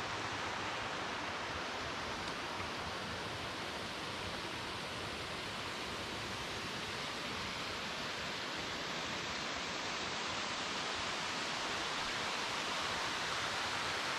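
Waterfall running steadily: a constant, even rush of falling water with no breaks.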